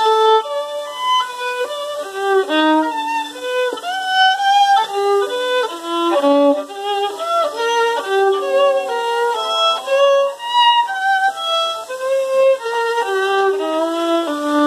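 Acoustic violin bowed through a quick melody of short notes, with a few slides between notes.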